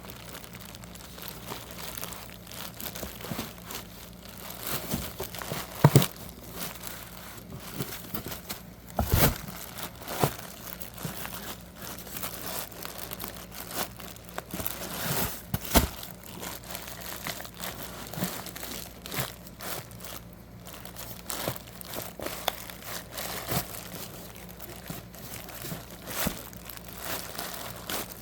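Worn original alternator from a Lexus GS400 with over 300,000 miles, making an irregular gritty crackling and crunching with sharp clicks and knocks, a few of them loud, over a faint steady low hum: the sound of a failing alternator.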